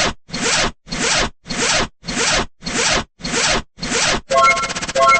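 Zipper sound effect: short zips repeated about twice a second. A little past four seconds it gives way to a repeating electronic beeping pattern.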